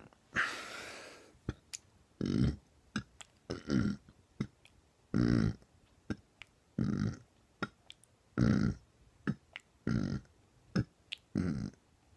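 A man burping over and over, seven short deliberate burps about a second and a half apart, after a hiss of breath lasting about a second near the start. Small clicks can be heard between the burps.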